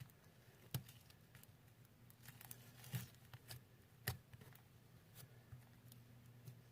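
Faint sticky clicks and soft rustling of homemade glue slime with sequins in it, being folded over and worked by hand. A few sharper clicks stand out, about a second in and again about four seconds in.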